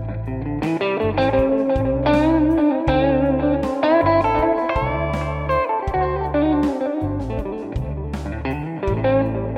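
Electric guitar playing single-note lines in the A minor pentatonic scale over a backing track with bass and drums; a note is bent upward about five seconds in.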